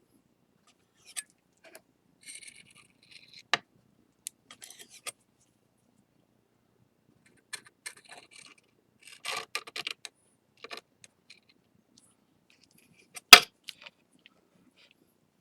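Palette knife scraping excess flour-and-lacquer paste off the glued break of a ceramic plate: light scrapes and small ticks coming in scattered bursts, with one sharp click about thirteen seconds in.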